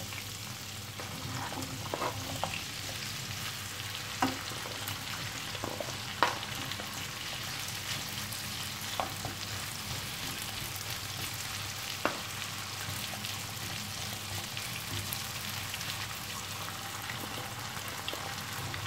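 Cubed potatoes sizzling steadily as they fry in melted butter in a non-stick frying pan. A few sharp knocks come as more cubes are pushed off a plastic cutting board into the pan with a wooden spatula.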